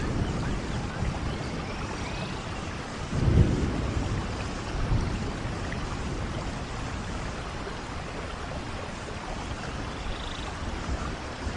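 Steady rain falling on forest leaves and ground, with a brief low rumble swelling about three seconds in.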